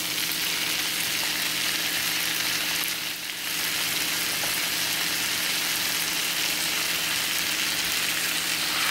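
Curry-seasoned chicken pieces and diced onions sizzling steadily in olive oil in a frying pan as the chicken browns, easing off briefly about three seconds in.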